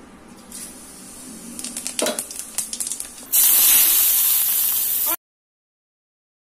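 Whole spice seeds crackling in hot oil in a kadai, then about three seconds in a loud sizzle as chopped onion goes into the oil. The sizzle cuts off suddenly about five seconds in.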